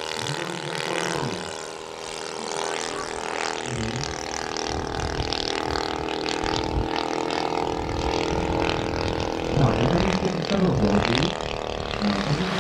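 Valach Motors VM 120 B2-4T two-cylinder four-stroke petrol engine of a giant-scale RC Zlin XII model plane, running steadily in flight with its propeller, a continuous drone that grows gradually louder.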